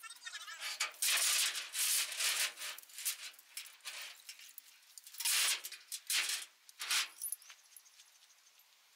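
Steel load chain rattling and clinking as it is handled and pulled over a trailer load, in irregular bursts that die away near the end.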